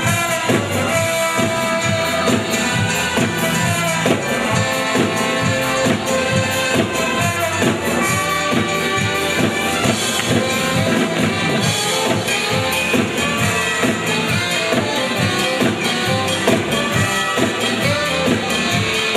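Upbeat background music with a steady beat, drums and tambourine.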